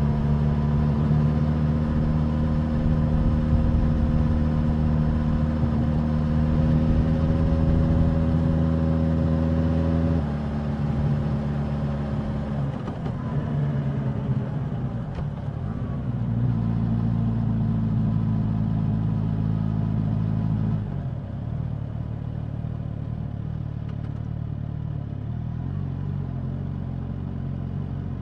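Suzuki GSX-S1000's inline-four engine and exhaust under way. It holds a steady note that climbs slowly for about ten seconds, then drops as the throttle is closed, wavers, and holds steady again. About two-thirds through it steps down to a quieter, lower note.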